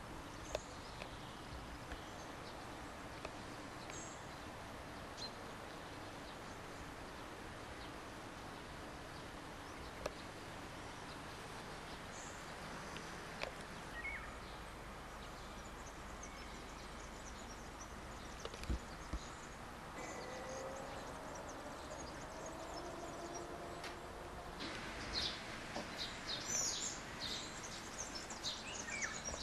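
Steady background hiss with a few faint clicks. Birds chirp repeatedly in the last few seconds.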